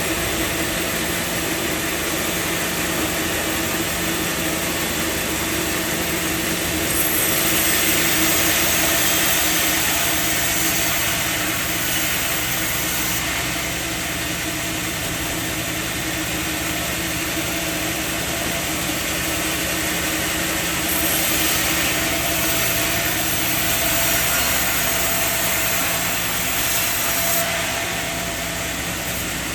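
Sawmill machinery running with a steady mechanical hum. Twice, for several seconds each time, a louder hiss rises over it.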